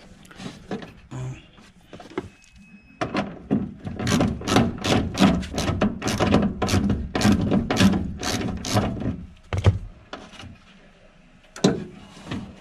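Metal clicking and clunking from a 1996–2000 Honda Civic hatchback's window regulator inside the stripped door as it is worked by hand. A few scattered knocks, then a fast run of strokes at about three a second for some six seconds, and one more knock near the end.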